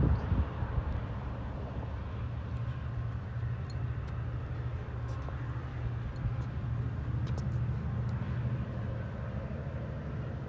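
Steady low rumble of an Amtrak San Joaquins passenger train moving away, with a brief louder bump right at the start.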